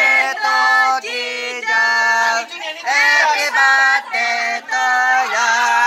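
A group of people singing a birthday song together, holding long sung notes with short breaks between them and a wavering final note.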